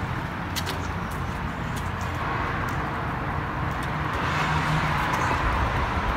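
A 2016 Subaru WRX STI's turbocharged 2.5-litre flat-four engine idling with a steady low rumble, heard close to the front of the car.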